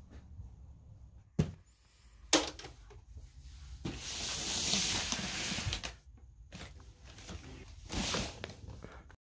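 Household handling noises from someone moving about in a room: three sharp knocks a second or so apart, then a couple of seconds of rustling, and a short rustle near the end as the recording phone is handled.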